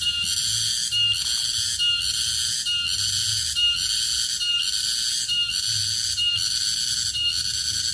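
Garengpung cicada (tonggeret) calling: a loud, shrill buzz that pulses, breaking briefly a little more often than once a second.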